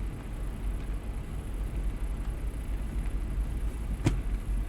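Steady low rumble of an idling truck diesel engine, with a single sharp click about four seconds in.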